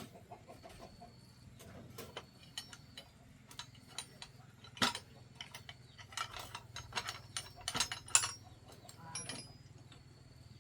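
Irregular clicks, taps and light knocks of tools and metal parts being handled during a machine repair, the loudest about five and eight seconds in, over a faint low hum.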